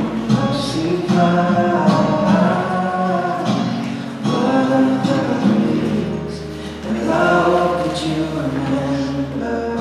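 Recorded choral music, voices holding long sustained chords, played over a gymnasium's loudspeakers.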